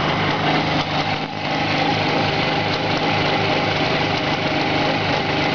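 Freshly rebuilt Jawa 638 two-stroke twin engine idling steadily at about 1500 rpm, puttering quietly and evenly.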